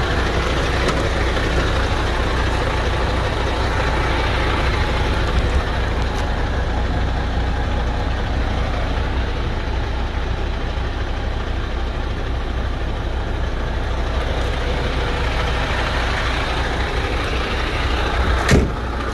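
MAN TGX 480's D26 straight-six diesel engine idling steadily, with a single sharp knock near the end.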